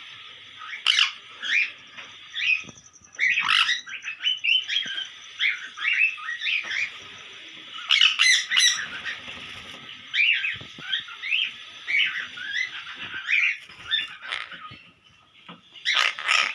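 A flock of small parrots squawking and chattering, with many short, harsh calls overlapping one another and louder clusters of calls now and then, over a steady hiss in the same pitch range.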